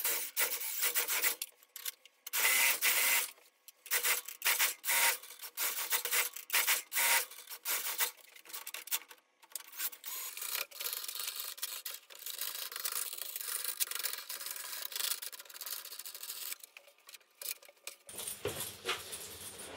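Nuts and washers being tightened along steel M12 threaded rod with a wrench: metal-on-metal scraping and rasping in irregular strokes, turning into a more continuous scraping in the second half. A low hum comes in near the end.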